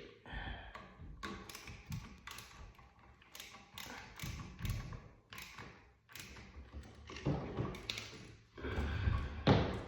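Irregular small taps and clicks of hands working a new electrical outlet and its wired terminals, with a louder knock near the end.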